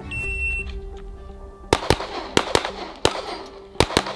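A shot timer beeps once, then after about a second and a half a rapid string of pistol shots follows, several of them in close pairs, with background music underneath.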